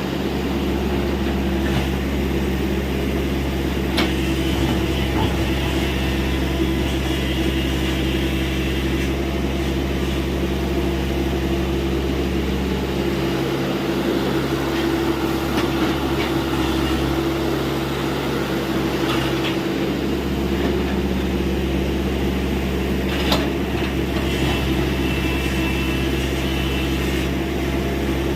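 Tata Hitachi EX70 excavator's diesel engine running steadily with a deep hum as it digs earth, with two sharp knocks, one a few seconds in and one late on.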